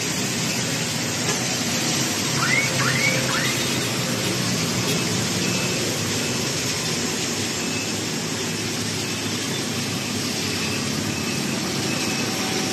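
Steady city traffic noise under an even hiss, with three short rising chirps about two and a half seconds in.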